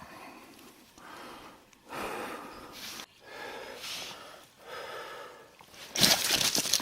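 A person breathing hard from exertion: four long, heavy breaths about a second apart. About six seconds in, a loud crunching and rustling starts.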